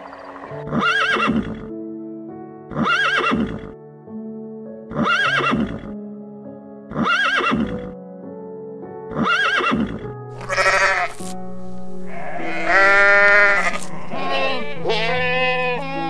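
Animal calls over background music with steady held tones: five short calls, evenly spaced about two seconds apart, each rising and then falling in pitch, followed from about ten seconds in by longer calls with a wavering pitch.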